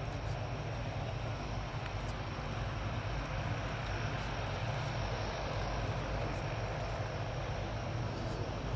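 The four Allison T56 turboprop engines of a Lockheed C-130H Hercules running at low taxi power as it rolls along the ground: a steady propeller sound with a strong low hum underneath.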